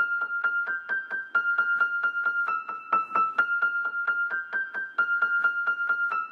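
Instrumental rap beat: a high, bell-like keyboard riff of quick repeated notes, about four to five a second, stepping between a few pitches, with no vocals.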